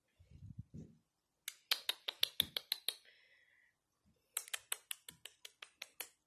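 Two quick runs of sharp clicks, about six a second, the first about a second and a half in and the second near the end, made to get a Serama hen to stand and pose. There is a short low rumble at the start.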